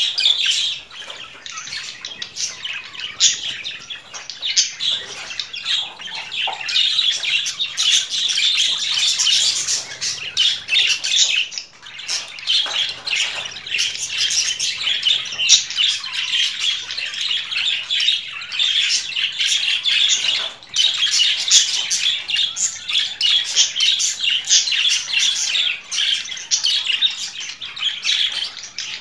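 Budgerigars chattering: a continuous, dense stream of warbles, chirps and squawks.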